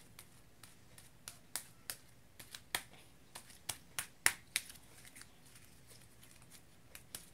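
Homemade glue-and-liquid-starch slime being kneaded and pressed between the hands as fresh glue is worked in, giving sharp, irregular clicks and pops, loudest around the middle.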